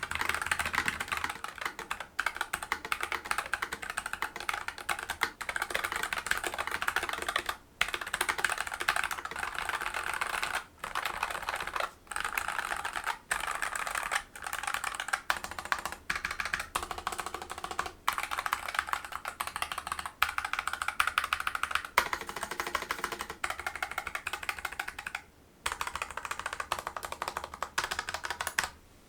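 Fast continuous typing on a NuPhy Air60 low-profile mechanical keyboard with Gateron low-profile switches: rapid, dense key clacks broken by a few brief pauses.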